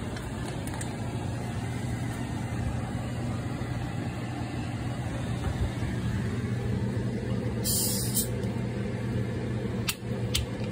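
A steady low mechanical hum, like a motor or fan running, with a brief hiss about eight seconds in and two sharp clicks near the end.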